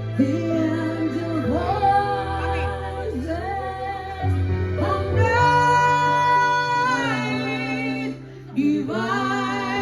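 A woman singing a slow melody with held, wavering notes over instrumental accompaniment.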